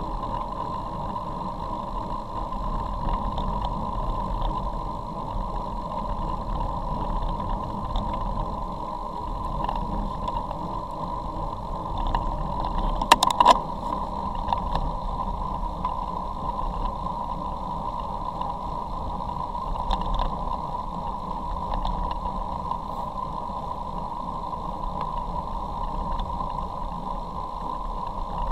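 Steady wind rush and tyre noise picked up by a camera riding on a road bicycle on wet tarmac, with a short cluster of sharp clicks about halfway through.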